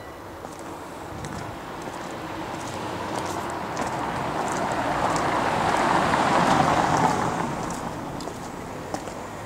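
A car passing by, its noise building slowly to a peak about six seconds in, then fading.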